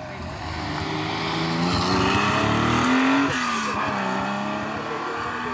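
Rally car engine accelerating hard past the spectators, its revs rising as it comes closer and loudest about three seconds in. The pitch then drops sharply, as on a gear change or a lift off the throttle, before the revs climb again.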